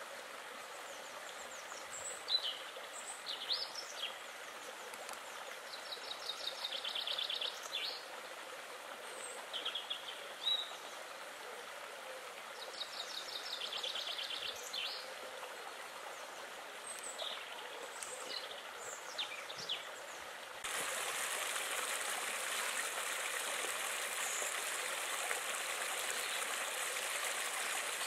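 Small songbirds singing, with repeated rapid trills and short chirps, over a steady hiss of water. About two-thirds of the way through, the sound changes abruptly to louder, close-by babbling water spilling over stones.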